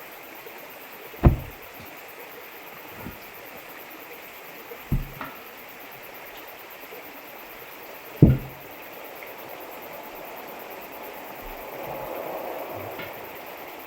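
Steady hiss of a fuel-burning heater running inside a dented water tank, with four dull thumps, the loudest about a second in and about eight seconds in.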